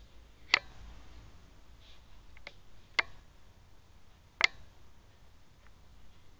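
Three sharp clicks with a fainter one between them: cats' paws and claws striking a wooden door and floor during play-fighting.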